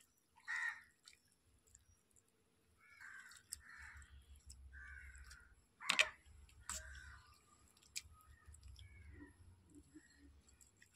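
Faint sounds of a fork stirring soaking noodles in water in a steel bowl, with a sharp clink of the fork against the bowl about six seconds in. A few faint short calls sound in the background.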